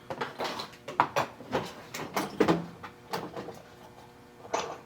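Irregular metal clunks and clicks of a drill chuck and tooling being handled and changed on a milling machine, a dozen or so knocks with brief ringing, the sharpest at the very end.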